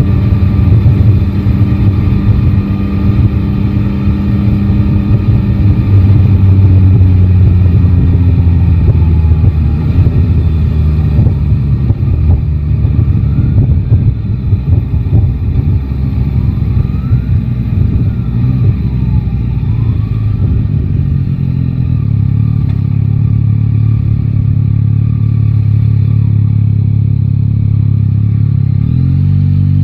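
Yamaha Tracer 9 GT's three-cylinder engine running under way, its revs falling and rising, climbing again near the end, with wind buffeting the microphone.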